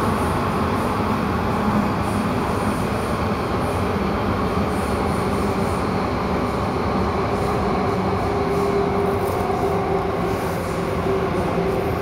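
MTR Tung Chung line A-train electric multiple unit heard from inside the carriage while running: a steady rumble of wheels and running gear with faint motor tones that shift in pitch.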